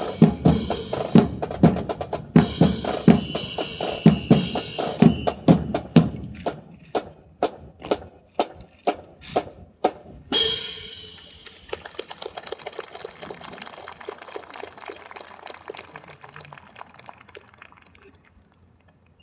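Drill team's rifles and boots: rhythmic slaps, clacks and stamps in a dense run for about six seconds, then single sharp clacks about two a second. A bright ringing crash comes near ten seconds, followed by a faint rapid clatter that dies away.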